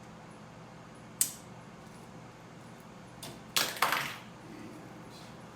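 Sharp clicks and snaps during a chiropractic adjustment of a locked-up elbow with a hand-held adjusting tool: one click about a second in, a faint one a little after three seconds, then two louder snaps close together around three and a half seconds in.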